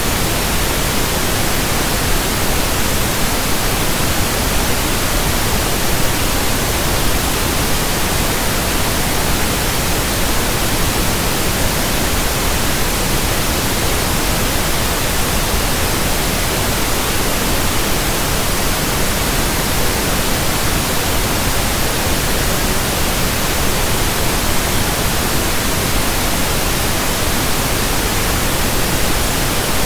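Steady synthetic pink noise: an even, unchanging hiss spread across all pitches.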